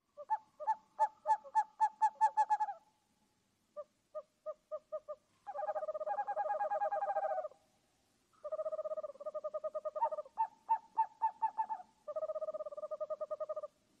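Owl calling in bouts of quick repeated hoots and rapid trills, each bout a second or two long with short pauses between.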